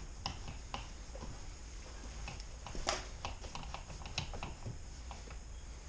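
Light, irregular clicks and ticks of a T20 Torx driver working the screw that locks the door handle in place, with one louder click about three seconds in.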